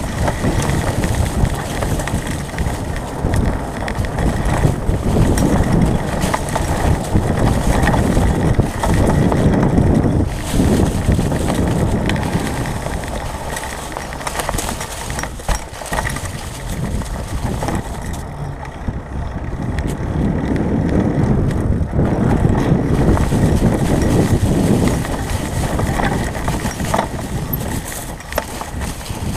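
Mountain bike rolling along a leaf-covered dirt trail: tyres running over dry leaves and the bike rattling, with a few sharp knocks. Wind rumble on the bike-mounted camera's microphone swells and eases every few seconds.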